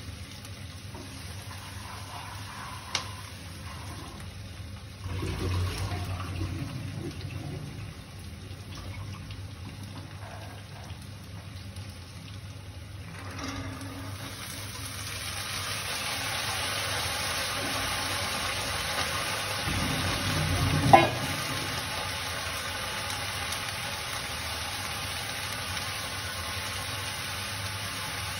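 Pot of water heating on a stove: a steady hiss that swells from about halfway through as the water works toward the boil. A sharp knock comes twice, faintly early on and loudest about two-thirds of the way in.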